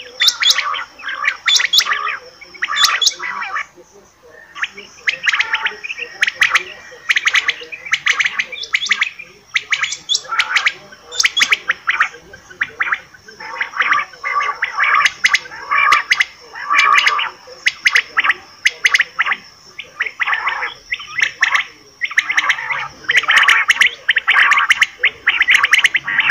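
Common quail (batair) calling over and over, quick clusters of short sharp notes following one another with brief pauses, over a thin steady high tone.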